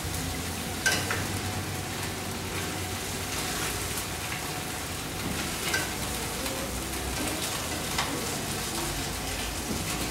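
Browned chicken pieces sizzling in hot oil in a frying pan, with a few light clicks of metal tongs against the pan and plate as pieces are lifted out, about a second in, near six seconds and at eight seconds.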